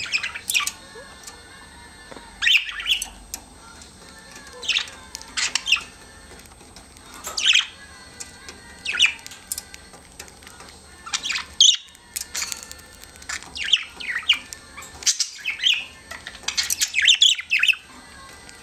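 Pet budgerigars chirping: a string of short, high chirps and squawks, one every second or two.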